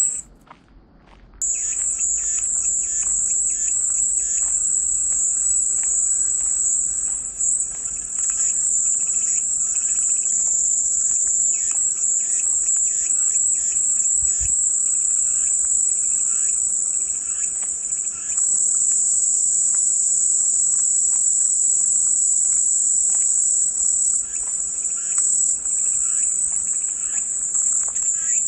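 Cicadas buzzing in a steady, high-pitched chorus that stops briefly for about a second near the start, then resumes and holds.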